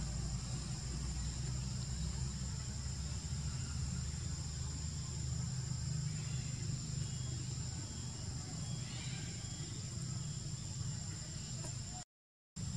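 Steady outdoor ambience: a constant low rumble under a steady high-pitched insect drone. The sound cuts out completely for about half a second near the end.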